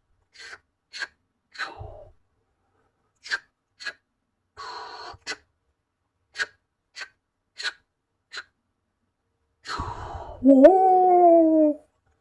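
Cartoon sound effects: a string of short, sharp gasp-like sounds spaced about half a second to a second apart. Then, about ten seconds in, a loud, drawn-out wailing cry that rises at its start and slowly falls.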